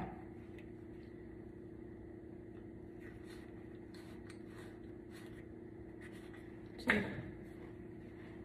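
Quiet handling sounds: faint rustling and light ticks as a towel and a small toner bottle are handled, over a steady low hum, with one sharp knock about seven seconds in.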